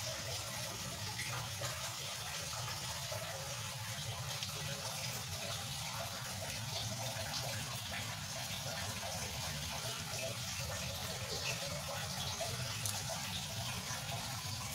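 Aquarium water running and splashing steadily into the tank.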